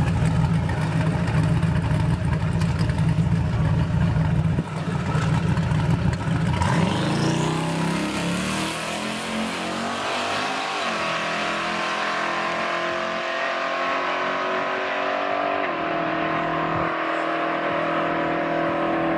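Twin-turbo LSX V8 of a box Chevy Caprice Landau rumbling heavily at the start line, then launching down the drag strip: the engine note rises about six seconds in and climbs in steps through the gears as the car pulls away into the distance.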